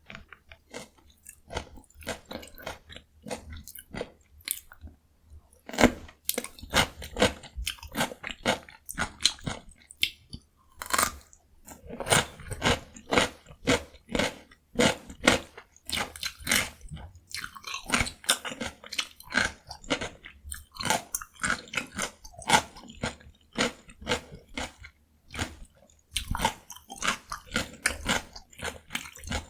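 Close-miked crunching of raw cucumber being bitten and chewed, a dense run of wet, crisp cracks. It is sparse for the first few seconds, then goes on almost without pause, with fresh bites about six, eleven and twenty-six seconds in.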